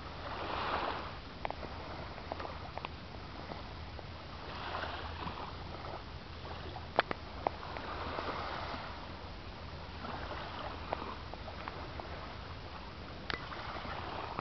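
Small waves lapping on a beach, a soft wash swelling every few seconds, with a few sharp clicks, the loudest about seven seconds in.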